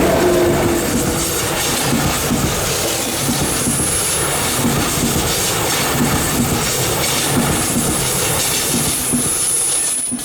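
A train rolling past close by: a steady rumble with regular clacks of wheels over the rails, about two a second, and a thin high wheel squeal that comes in briefly about a third of the way in and again, longer, in the last few seconds.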